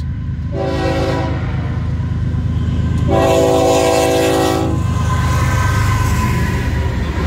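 Florida East Coast Railway freight train's lead diesel locomotive sounding its horn for a grade crossing: a short blast about half a second in, then a longer one about three seconds in. Under it runs a deep locomotive engine rumble that grows as the locomotives pass.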